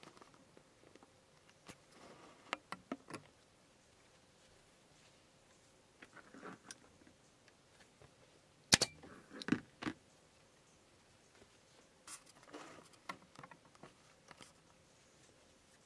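Scattered light clicks, taps and soft rustling of handling work, with a sharp knock about nine seconds in followed by a few quicker ones.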